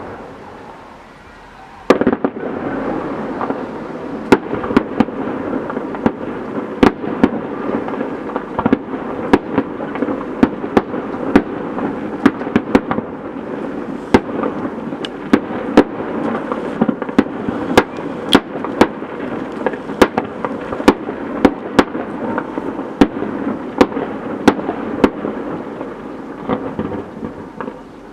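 Fireworks display: a fading rumble, then about two seconds in a dense barrage starts, a continuous rumble and crackle with sharp bangs one to two a second.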